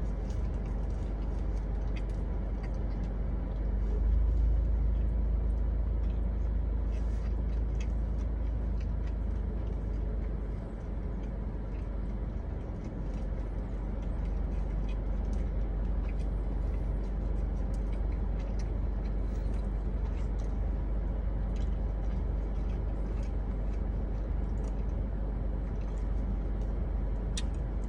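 Faint chewing and wet mouth clicks from a mouthful of bacon cheeseburger, over a steady low rumble like a car engine heard inside the cabin. The rumble swells slightly a few seconds in.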